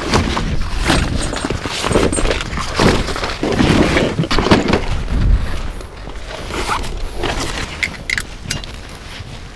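Irregular thumps, knocks and clatter, busiest in the first few seconds and thinning out after about six seconds.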